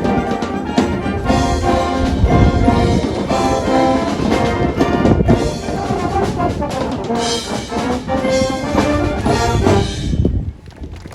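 A high-school marching band plays loudly: brass with trumpets and trombones over drums. The music stops abruptly about a second before the end.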